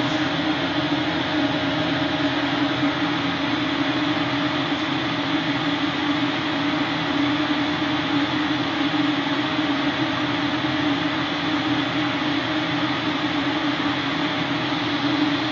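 Steady rush of air with a low steady hum from the fans of an Epilog Mini 24 CO2 laser engraver, running idle with the cut finished.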